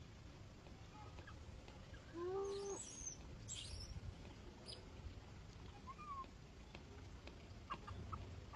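A few short, high animal squeaks and chirps over a low constant rumble. They cluster about two to four seconds in, where the loudest is a brief call with a dipping pitch, and a couple of small squeaks follow later.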